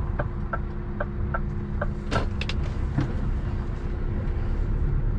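Heavy lorry's diesel engine running at low revs, heard from inside the cab, with the indicator ticking steadily, about two and a half ticks a second, until it stops about two seconds in, followed by a single sharp click.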